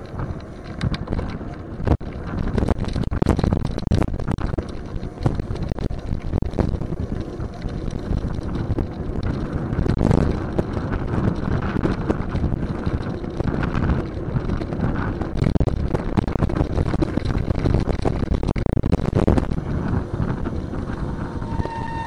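Wind buffeting the microphone of a bicycle-mounted camera while riding, with steady road rumble and frequent sharp knocks and rattles.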